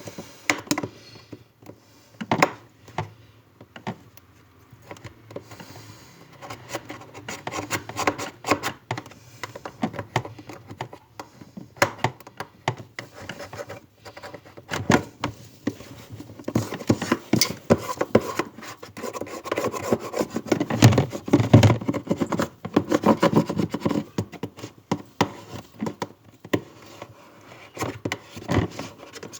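Irregular rubbing, scraping and clicking of parts and tools being handled during refrigerator repair work, busier in the second half.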